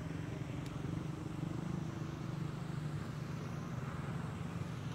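Steady low motor hum, with one faint click less than a second in.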